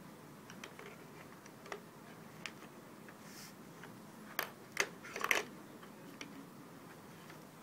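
Colored pencils clicking and rattling against each other and a plastic coffee canister as a small child rummages through them: scattered light taps, with a quick cluster of louder clatters about four and a half to five and a half seconds in.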